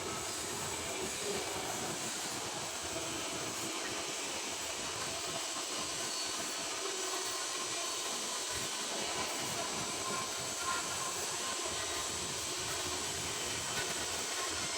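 Welding arc on a carbon steel pipe, a steady hiss with a fine crackle.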